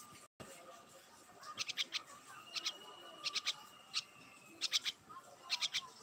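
Jungle babbler calling in short bursts of quick chattering notes, about one burst a second, with a thin steady high tone held for a second or so midway.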